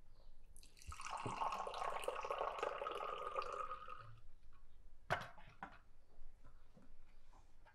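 Tea poured in a steady stream from a metal teapot into a small tea glass, lasting about three and a half seconds. About five seconds in there is one sharp metallic knock as the teapot is set down on the metal tray.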